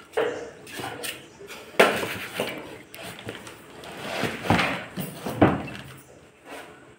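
A cardboard packing box and plastic wrapping being handled and cut open with a knife: rustling and scraping, broken by several sharp knocks and tears, the loudest about two seconds in and again twice near the middle to later part.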